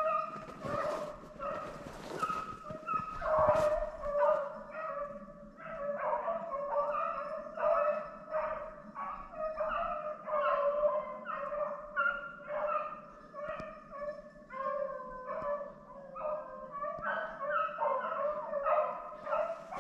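Rabbit-hunting hounds baying in a quick, continuous run of short calls: the dogs have jumped a rabbit and are running its trail. A few short rustling noises come in the first four seconds.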